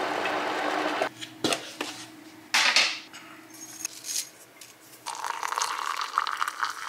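Dishes and utensils clinking and knocking, with a steady hiss in the first second and a stretch of rushing, rattling noise from about five seconds in.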